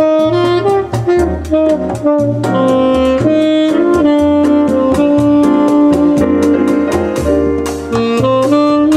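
Recorded jazz played back through B&W DM601 S3 bookshelf loudspeakers driven by RCF AM-30 valve amplifiers. A held melody line sits over a bass line and a fast, steady beat.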